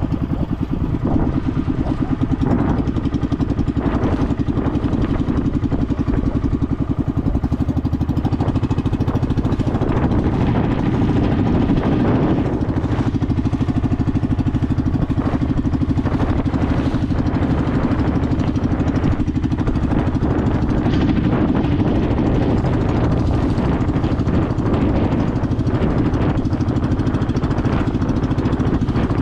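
Small petrol engine running steadily at an even speed while under way, with short knocks and rattles here and there.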